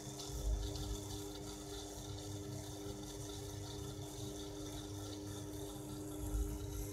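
Steady electrical mains hum with a rushing hiss from the powered motor-drive bench setup. Two dull low thumps come about half a second in and again near the end.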